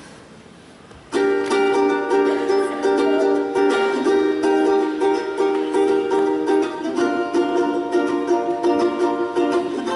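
Music starts suddenly about a second in after a quiet pause, with held notes that change every second or so: the opening of a girls' vocal group's song.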